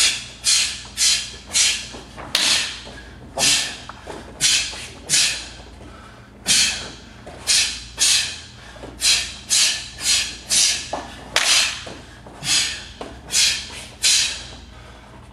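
Martial artists performing a form: a run of sharp hissing bursts, about two a second, one with each punch, block or kick, from forceful exhalations and snapping uniform sleeves.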